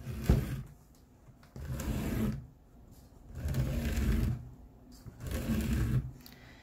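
Stitching lace pulled through the punched holes of a leather scabbard's edge seam, in three long drags under a second each and roughly evenly spaced, after a sharp knock near the start.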